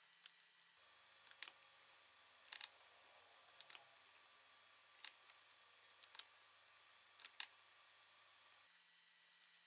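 Faint, sharp clicks of a computer mouse, roughly one a second, over near-silent room tone.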